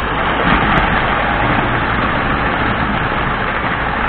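Postwar Lionel O-gauge electric train running steadily around the track: a steady low hum under an even rushing noise.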